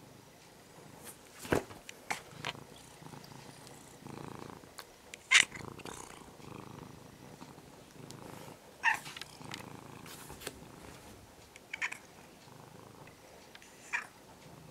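Domestic cat purring steadily, close to the microphone, with a handful of short sharp clicks and rustles scattered through; the loudest comes about five seconds in.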